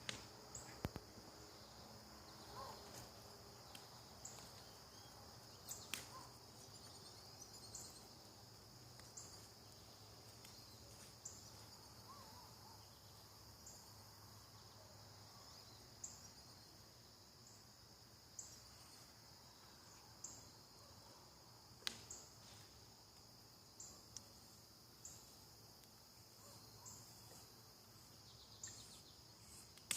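Night insects trilling faintly and steadily, with short higher chirps repeating every second or two. A few sharp pops and crackles from the campfire come through now and then.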